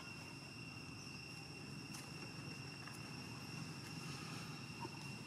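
Insects droning: a faint, steady high-pitched buzz holding one pitch, with a few soft ticks over it.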